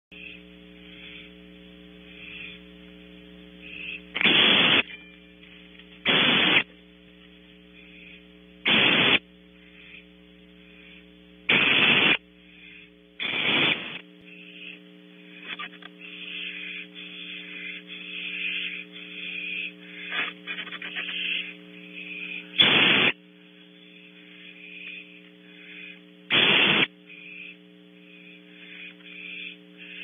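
Barn owl screeches: about seven harsh half-second bursts spread irregularly, with softer scratchy calls in between, over a steady electrical mains hum from the nest camera's audio.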